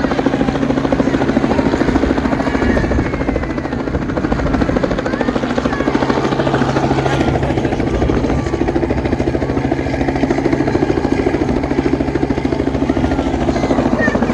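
Helicopter flying low overhead, its rotor blades chopping in a fast, steady beat over a steady low engine hum.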